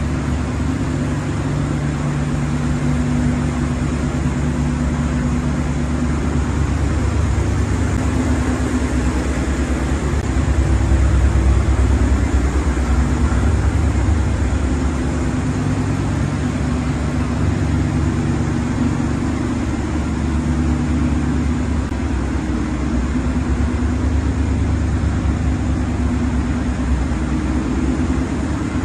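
1970 Dodge D-series pickup's V8 engine running steadily, swelling slightly about midway.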